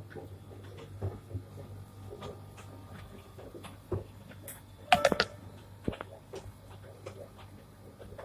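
Scattered knocks and clatters of a heavy ice-making machine being moved and set down, over a steady low hum. About five seconds in there is a sharp, ringing metallic clatter.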